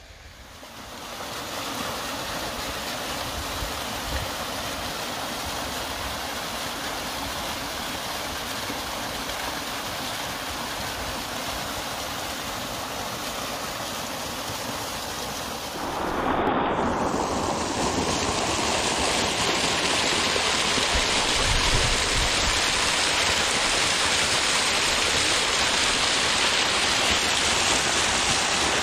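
Mountain waterfall: a steady rush of falling water splashing onto rocks. It becomes louder and brighter about halfway through, where a closer view of the falls begins.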